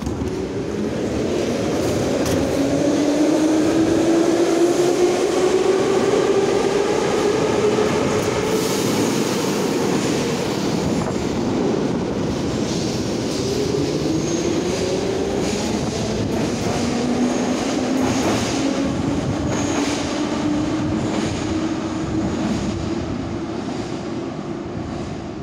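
Metro trains moving through an underground station: an electric traction motor whine climbs steadily in pitch as a train accelerates, and a second rising whine follows about halfway through. Both sit over a constant rumble of wheels on rail, with a run of sharp knocks from the wheels in the middle.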